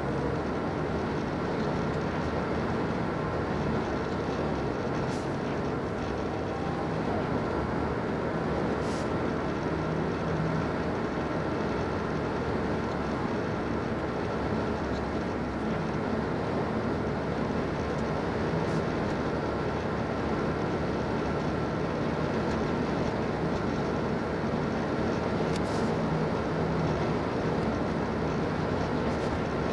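Steady road and engine noise inside a moving car's cabin: tyres rolling on pavement and the engine running at an even speed.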